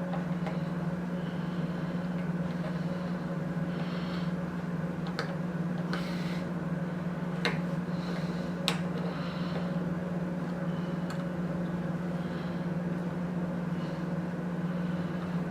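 Steady low room hum, with a few light clicks about a third to halfway through as small wood screws are driven with a small screwdriver to fix limit switches onto their mounting plates.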